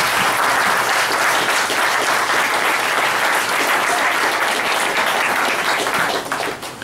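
Congregation applauding, a dense steady clapping that dies away near the end.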